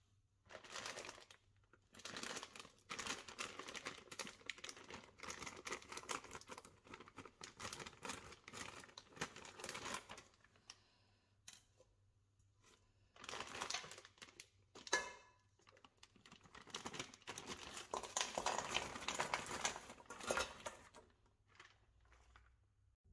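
Plastic bag of frozen cassava chips crinkling and rustling in repeated bursts as it is handled, opened and emptied, with a short pause partway through and one sharp click.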